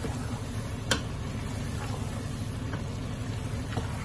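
Chickpeas, potatoes and masala frying in a metal pan, with a spoon knocking against the pan as it stirs: one sharp knock about a second in, then a few fainter ones.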